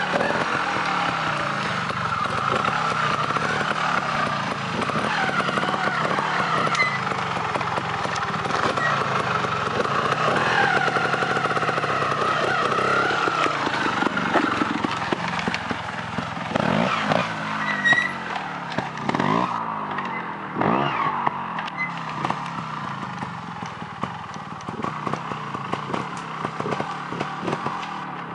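Trials motorcycle engine being ridden over a dirt trail, its revs rising and falling constantly as the throttle is worked. A few quick, sharp rev blips come about two-thirds of the way through, and the engine is quieter toward the end.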